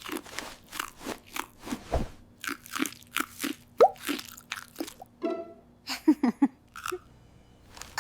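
Repeated crunching bites and chewing of a crunchy snack, a few crunches a second, mostly in the first five seconds.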